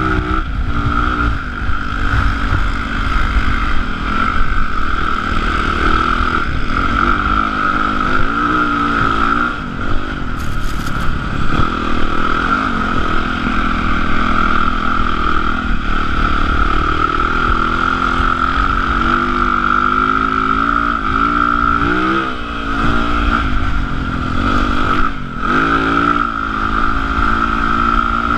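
Yamaha YZ450F's single-cylinder four-stroke engine running under the rider, rising and falling in pitch as the throttle is worked. There are brief throttle-offs about a third of the way in and twice near the end, and a steady high whine and rumble of wind on the microphone run beneath it.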